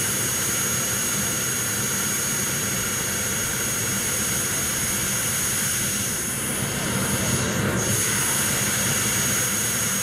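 JetCat P180 model jet turbine running steadily on the ground: a continuous exhaust rush under a steady high-pitched whine. It gets a little louder from about seven seconds in.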